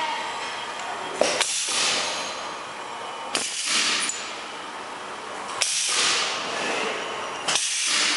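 Dental drill packaging machine running, a steady hiss with a repeating cycle about every two seconds, several cycles marked by sharp clicks.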